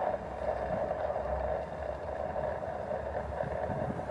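Outdoor wind buffeting the microphone, a low rumble that swells about a second in, over a steady hissing drone.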